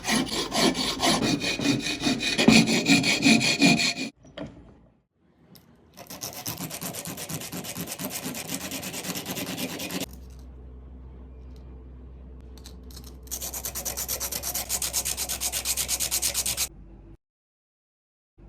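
A metal screw nut being worked with an abrasive by hand: runs of rough rasping strokes, broken into separate stretches with short silent gaps between them. A steady low hum sits under one quieter stretch near the middle.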